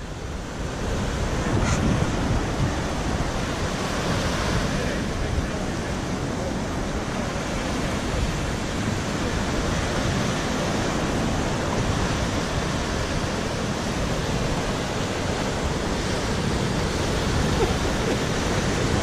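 Ocean surf breaking and washing up the shore, a steady rush of noise.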